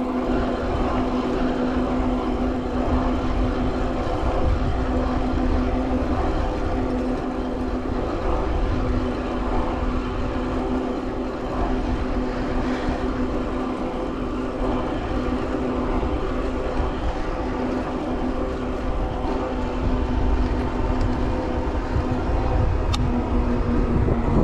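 Steady riding noise of an electric bike under way: a constant hum from the e-bike's motor over a low rumble of wind on the microphone.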